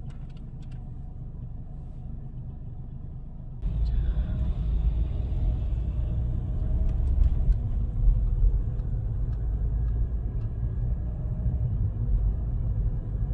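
Low steady rumble of a vehicle on the move, which gets louder about three and a half seconds in.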